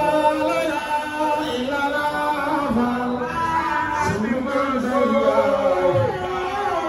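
Men's voices chanting together in a group, holding long sung lines that slide up and down in pitch.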